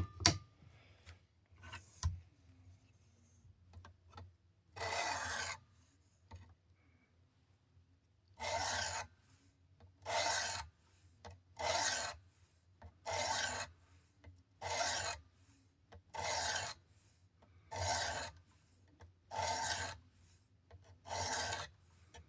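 A 400-grit sharpening stone on a Work Sharp Precision sharpener rasping along an OTF knife's blade edge in smooth strokes, base to tip. A few light clicks come first, then one stroke, then a steady run of strokes about every second and a half. The edge is being worked to raise a burr.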